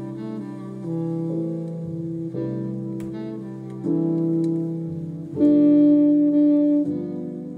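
Instrumental background music led by keyboard: held chords that change every second or so.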